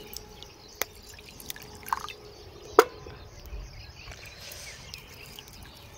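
Water poured from a glass bottle into a mug over dried flowers to rinse them, trickling softly. There are a few sharp knocks, the loudest about three seconds in, which fits the glass bottle being set down on the wooden board.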